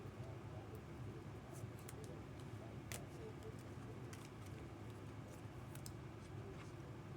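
Trading cards and packs being handled and flipped through by hand: scattered light clicks and flicks, the sharpest about three seconds in, over a low steady hum.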